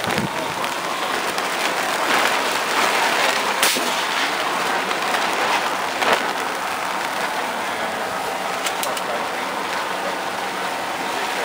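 Steady downpour of rain falling on the shelter overhead, with a single sharp crack about six seconds in.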